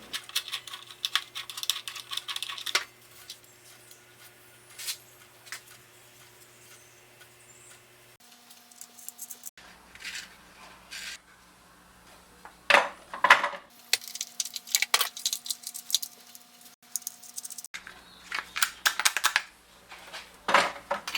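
Scattered metallic clicks and clinks of hand tools and steel parts being handled while dismantling a vintage Black & Decker 9411 band saw, with a few busier clusters of clatter, over a faint steady hum.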